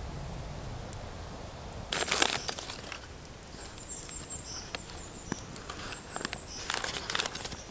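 Two bursts of rustling and scraping handling noise, about two seconds in and near the end, with faint, high, thin bird chirps repeating in between.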